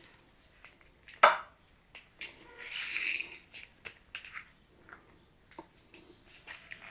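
Lime being squeezed in a plastic hand-held lime squeezer over a bowl of sliced cucumber: a sharp click about a second in, a soft hiss of juice being pressed out near the middle, and a few small clicks and taps.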